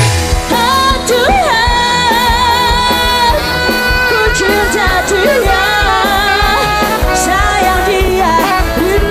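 Live rock dangdut band music: a long, wavering melody line held over a steady drum and bass beat.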